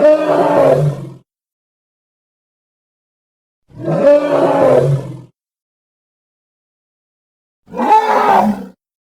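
Three separate gorilla roar sound effects, each a second or so long, with dead silence between them.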